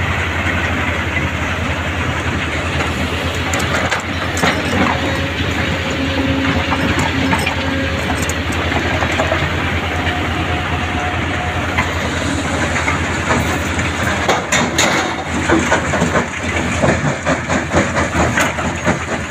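Kobelco excavator and a mobile stone crusher running together under load: a steady heavy engine and machinery drone, with rattling knocks in the last few seconds as material goes into the crusher's hopper.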